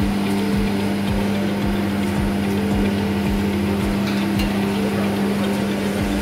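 Snack production-line machinery running: a steady mechanical hum with one strong low tone, over regular low thumps about three a second that die away near the end.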